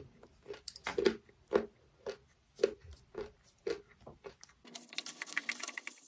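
A person chewing a peeled chestnut close to the microphone, soft crunches about twice a second. Near the end the chewing stops and gives way to fainter, quicker ticking and rustling.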